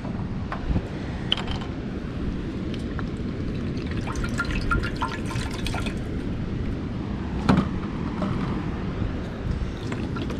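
Cold water being poured into a container to fill it for soaking a wooden smoking plank, over a steady low background rush.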